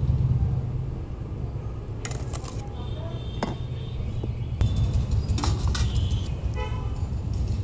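A metal spoon scrapes and clinks against steel pots as parboiled rice is spooned in a layer over the chicken for biryani. A few separate clinks stand out over a steady low rumble.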